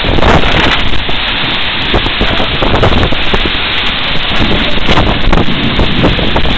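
Hurricane-force wind blowing with heavy rain, loud and continuous, buffeting hard on the phone's microphone.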